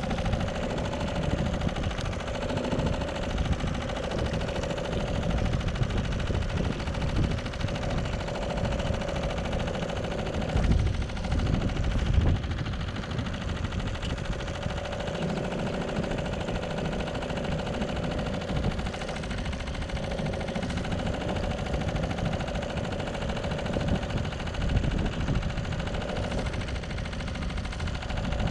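Wind buffeting the microphone in a steady, crackling rumble, with stronger gusts about ten to twelve seconds in.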